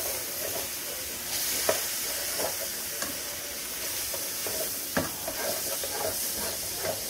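Sliced smoked sausage, peppers and onions sizzling in a frying pan, with a spatula scraping and knocking against the pan as the food is stirred; the sharpest knock comes about five seconds in.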